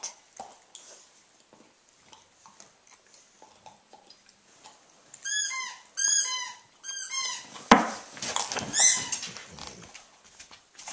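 Two dogs play-fighting on a dog bed: three or four rounds of short, high-pitched squeals about halfway through, then a sudden thump and scuffling with one more squeal.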